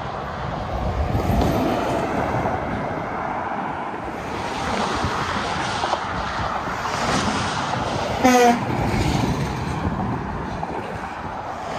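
Interstate traffic going by: tyre and engine noise that swells and eases as vehicles pass. A short truck horn honk, the loudest sound, comes about eight seconds in.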